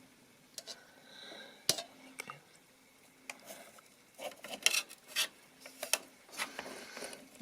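Scattered clicks, taps and light clinks of PC hardware being handled inside a computer case, as the graphics card and its slot latch are worked loose.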